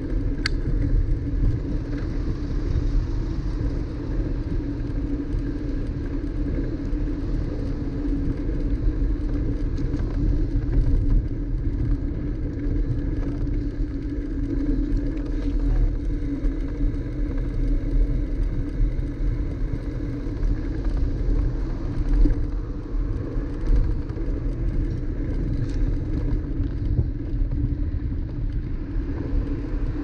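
Steady low rumble of road and wind noise picked up by a bicycle-mounted GoPro while riding on a paved city street, with one brief click about half a second in.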